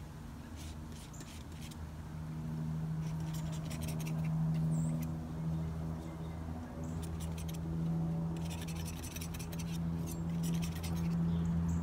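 A steady, low motor hum in the distance, swelling a little as it goes on, with several short bursts of fast, high clicking over it.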